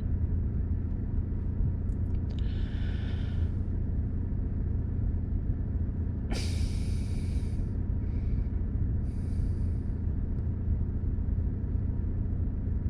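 Steady low drone of a car engine idling. A few short breathy hisses sound over it, the longest about six seconds in.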